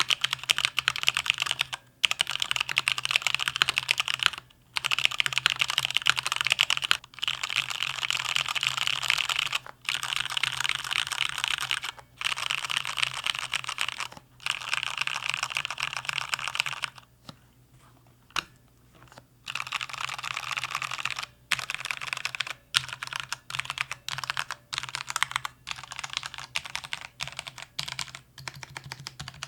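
Mountain Everest Max mechanical keyboard with Cherry MX Red linear switches being typed on quickly, in dense runs of keystrokes broken by short pauses. After a pause of about three seconds in the middle, the keystrokes come sparser and more separated.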